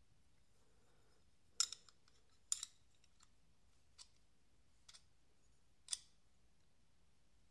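Hinderer Eklipse folding knife's blade being swung open and shut on its bearings, making a series of sharp metallic clicks: about five over four seconds, the first two and the last the strongest.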